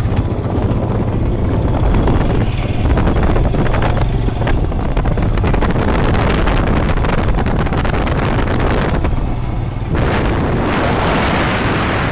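Motorcycle engine running while riding, with wind rushing over the microphone. The rush grows louder and brighter about ten seconds in.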